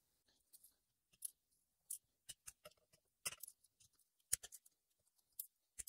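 Faint, scattered metallic clicks of a torque wrench tightening the Valvetronic bracket bolts to 10 Nm, one click at a time at irregular intervals.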